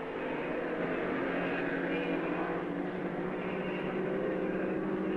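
Steady drone of distant racing-car engines, a level hum that grows slowly louder.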